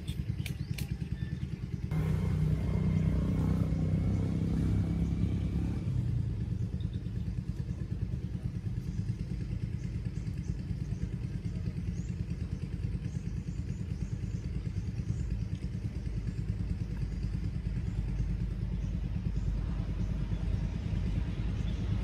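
A small engine running steadily, a low drone with a fast, even flutter. It gets louder and fuller about two seconds in, easing back a few seconds later.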